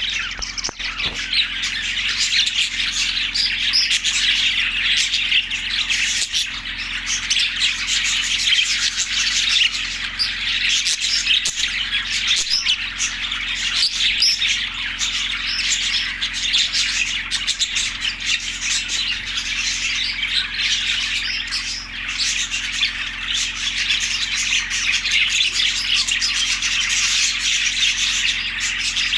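A group of budgerigars chirping and chattering continuously, many short warbling and squawking calls overlapping with no pauses.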